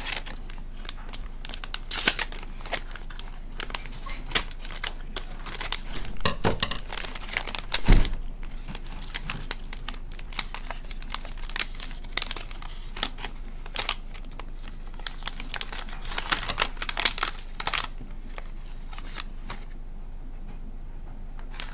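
Plastic blind bag being crinkled and torn open by hand, a quick run of sharp crackles and rustles, with one louder thump about eight seconds in.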